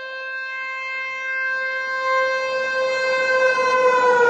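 Indian Railways dual-mode locomotive sounding its horn in one long, steady single-note blast as it runs through at speed. Near the end the pitch falls as the locomotive passes (Doppler shift), and the rush of the passing train rises.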